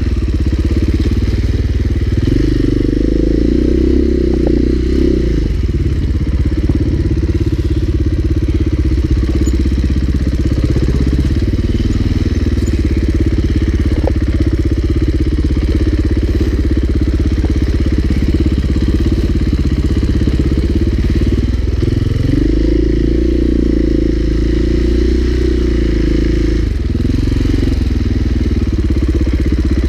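Husqvarna four-stroke enduro dirt bike engine running steadily at low revs close to the rider. The engine pulls harder twice, for a few seconds each, about two seconds in and again about twenty-two seconds in.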